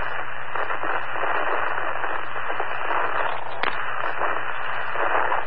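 Fire department two-way radio channel heard through a scanner feed, carrying a loud, steady static hiss with crackling and a sharp click a little past halfway, and no voice: a keyed radio transmitting only noise.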